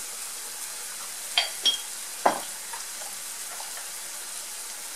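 Chopped onion and peppers sizzling steadily in oil in a frying pan. A few light clicks and clinks come in quick succession around a second and a half to two seconds in.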